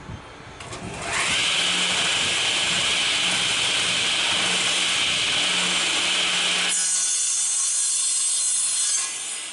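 10-inch table saw starting up about a second in, its whine rising to speed, then running loud and steady while a wooden dowel rod is pushed through the blade. About seven seconds in, the lower part of the sound drops away. Near the end the level falls while the blade keeps spinning and coasts down.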